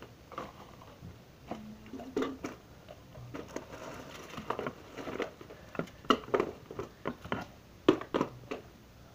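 Homemade glue-and-borax slime being squeezed and stretched by hand, giving irregular wet squishes and sticky clicks.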